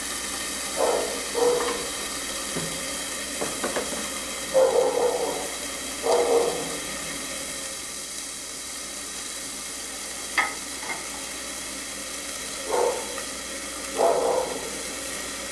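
Bacon-wrapped chicken fillet sizzling steadily in a lidded grill pan as it finishes cooking, with several short louder spits and one sharp click.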